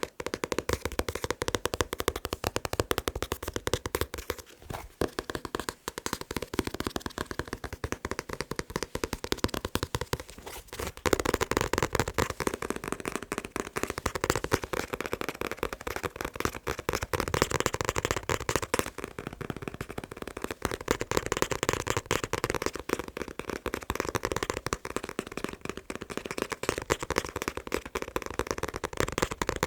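Fast, continuous tapping on manga books, a rapid stream of sharp taps with a couple of brief pauses, growing a little louder about a third of the way in.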